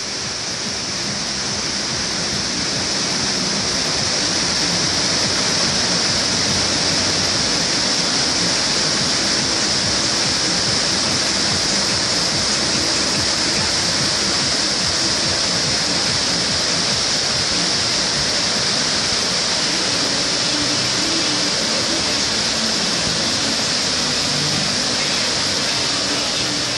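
Steady loud rush of falling water from a volcano-show waterfall and fountain. It swells over the first few seconds, then holds even.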